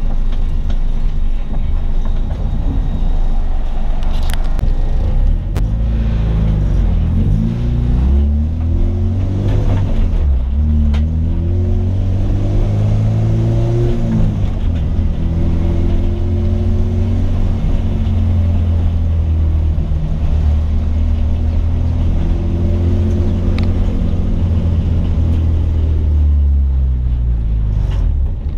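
Honda K20 inline-four in an EG Civic under way: the engine note climbs, drops at a gear change about ten seconds in, climbs again, then holds steady at cruise before falling away near the end as the car slows.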